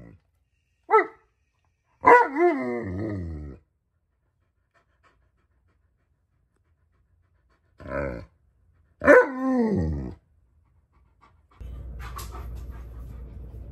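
Alaskan malamute vocalizing impatiently in four separate calls, two short and two longer drawn-out ones whose pitch wavers up and down, the last sliding downward. A steady low hum starts near the end.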